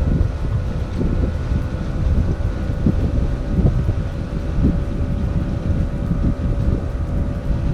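A catamaran's engine running steadily under way, a constant hum and rumble, with wind buffeting the microphone in irregular gusts.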